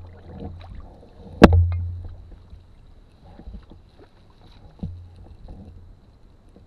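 Two sharp knocks on the canoe's hull, about a second and a half in and about five seconds in, each followed by a low, hollow ring that fades away; the first is the louder. Fainter clicks and taps of gear in the boat fall between them.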